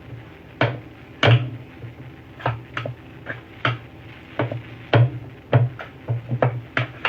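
Kitchen clatter: about a dozen irregular knocks of dishes and utensils being handled.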